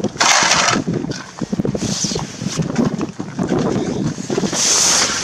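Nylon fabric of a pop-up ice-fishing shelter rustling and swishing as its door flap is pulled open and pushed through, with a loud hissing rush just after the start and shorter swishes near two seconds and near the end, over scattered bumps and footfalls.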